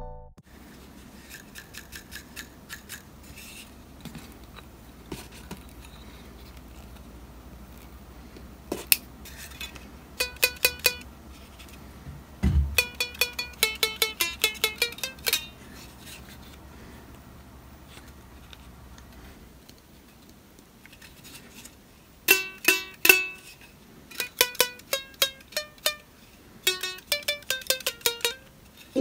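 A fishing-line string on a homemade wooden stick guitar being plucked in three short runs of notes with pauses between them. The pitch changes as a finger presses the line at different points along the neck.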